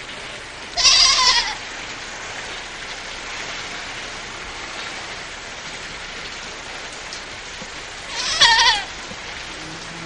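Livestock bleating twice, a short wavering bleat about a second in and another near the end, over a steady hiss of rain.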